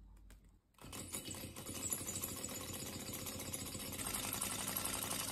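Small hot-air Stirling engine model running, its propeller spinning: a faint, rapid mechanical clatter that starts about a second in and grows slightly louder near the end.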